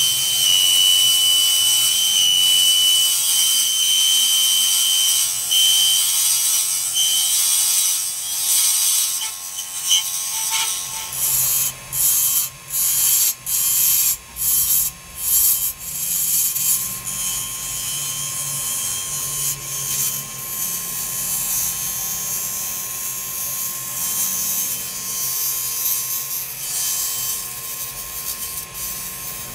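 Wood lathe running while a hand-held turning tool cuts a spinning ebony handle blank, a bright scraping over a steady motor whine. In the middle the tool is lifted on and off several times in quick succession, then the cut runs steady again.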